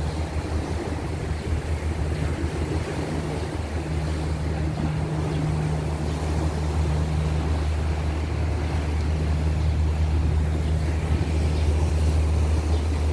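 Motorboat engine running as a steady low drone, with a rush of water and wind; it grows slowly louder toward the end.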